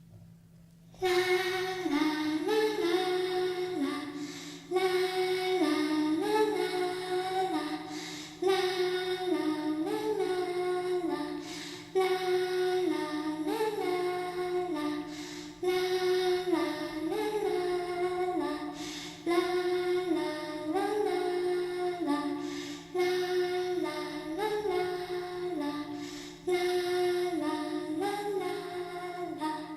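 Eerie humming of a slow, lullaby-like tune by a high, child-like voice. The same short stepped phrase repeats as a loop, restarting about every three and a half seconds.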